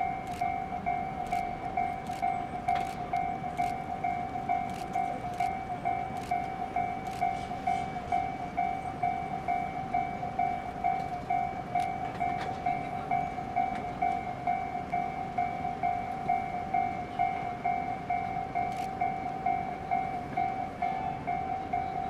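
Level-crossing warning bell ringing steadily at about two strikes a second: the crossing's signal that a train is coming.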